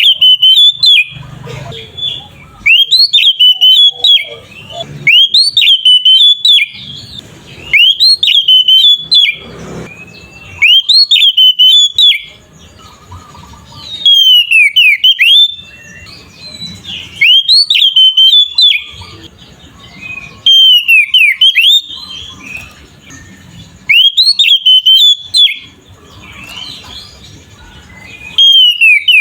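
Oriental magpie-robin (kacer) singing in its loud, open 'ngeplong' style: about a dozen loud whistled phrases with rapid sweeping notes, each about a second long, repeated every two seconds or so with short pauses between.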